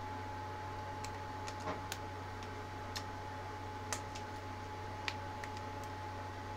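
About ten light, irregular clicks and ticks of hair and a hair elastic being handled as long hair is tied into pigtails, over a steady electrical hum with a faint steady tone.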